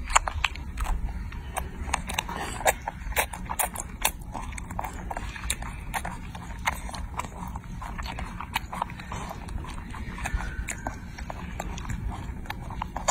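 Baby macaque chewing and smacking on grapes: irregular wet clicks and smacks, a few a second, over a steady low hum.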